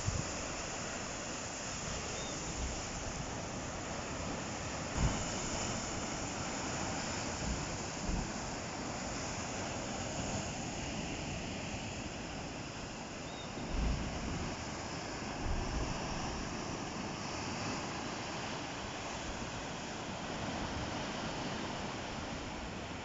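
Ocean surf washing steadily onto the shore, a continuous hiss of breaking waves. Wind buffets the microphone in a few brief low thumps.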